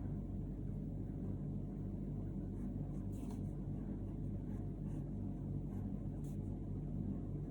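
A steady low rumble with a pulsing hum, and a few faint, short scratching sounds.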